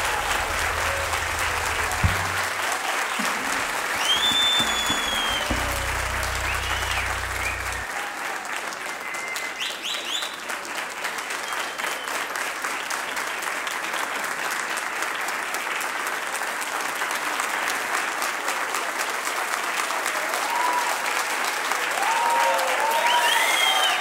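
Audience applauding and cheering at the end of a live performance, with a few whistles and shouts. A low hum sits under the clapping and stops about eight seconds in.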